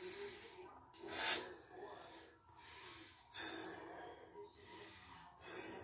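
Breath noise from someone blowing a bubble-gum bubble: three hissing breaths through the nose and mouth about two seconds apart, the first the loudest.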